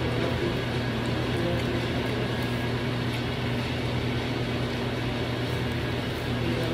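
Steady low mechanical drone of HVAC machinery running, even and unchanging throughout.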